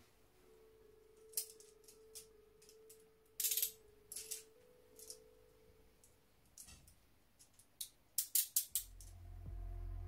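Clejuso 12D handcuffs being put on: scattered metal clicks as the cuffs are handled and closed on the wrists, then, near the end, a quick run of about five ratchet clicks as a cuff is tightened.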